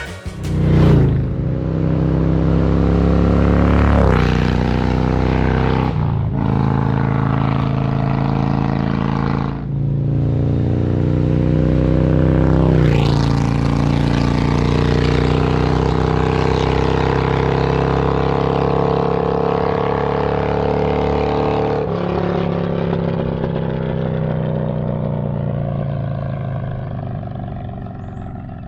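Harley-Davidson Milwaukee-Eight 117 V-twin with a cam upgrade and aftermarket exhaust, running loud under way. Its note rises under acceleration and breaks sharply several times as it shifts through the gears.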